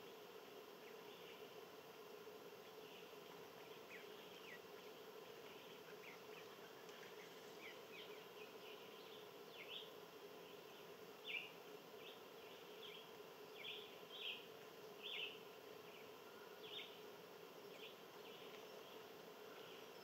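Faint outdoor ambience: a steady low hum, with a scattered run of short high chirps through the middle, the loudest about eleven seconds in.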